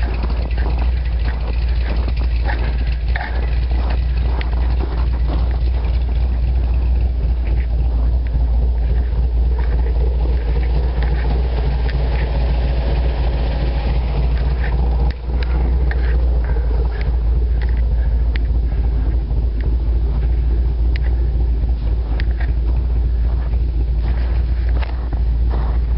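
A four-wheel-drive vehicle driving through deep snow, its engine running with a steady low rumble and scattered small knocks.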